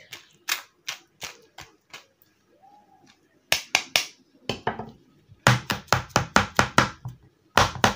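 Metal spoon tapping and scraping against a plastic mesh sieve as lemon pulp is pressed through it. The taps are scattered at first, then come as a quick run of knocks, about five or six a second, in the second half.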